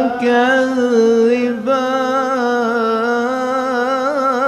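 A man's voice reciting the Quran in melodic tilawat style, drawing one phrase out into a long, ornamented line with small wavering turns in pitch. There is a short break about one and a half seconds in, then the line is held on.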